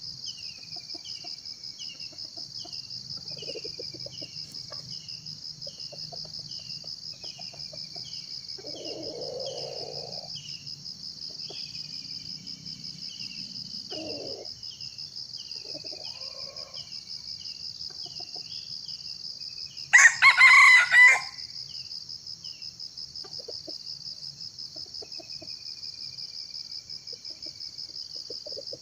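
A junglefowl crows once, loud and short, lasting about a second, a little past two-thirds of the way through. Under it runs a steady, pulsing high insect chorus and a small bird's repeated falling chirps, about one a second.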